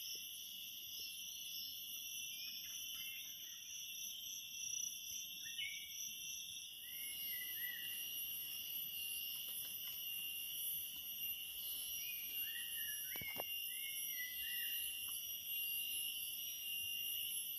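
Forest insects droning steadily in several high, continuous pitches, with occasional short faint chirps scattered through.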